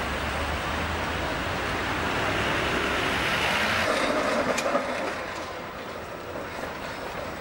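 Electric trams and road traffic on a city street: a steady rumble with tyre noise that grows louder until about four seconds in. It then drops to a quieter rumble of trams rolling on street track, with a few sharp clicks.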